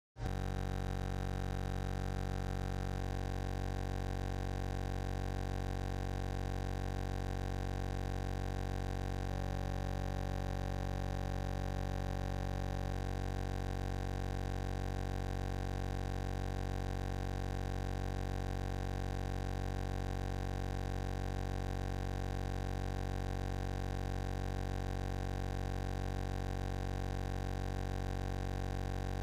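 A steady electronic buzzing drone made of many steady tones, strongest low down, starting abruptly out of dead silence and holding at an even level throughout.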